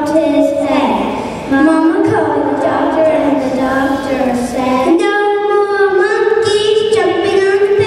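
A young girl singing into a microphone, amplified over a PA loudspeaker in a reverberant gym, holding long notes in the second half.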